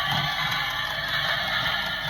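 Background music playing continuously.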